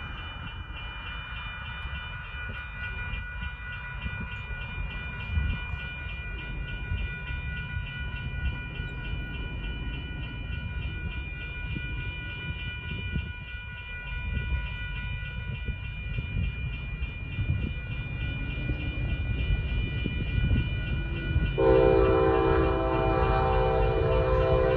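Railroad crossing bell ringing steadily over the low rumble of an approaching freight train, which grows louder. About 22 seconds in, the lead locomotive, an EMD SD70ACe-T4, sounds its multi-note air horn.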